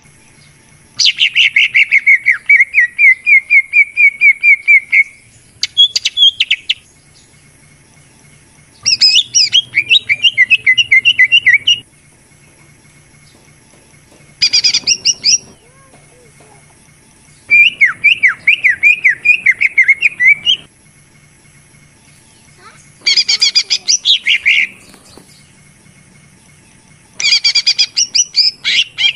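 Cucak ijo (green leafbird) singing a lure-recording song: seven phrases of rapid, repeated whistled notes, several a second, each phrase one to four seconds long, separated by short pauses.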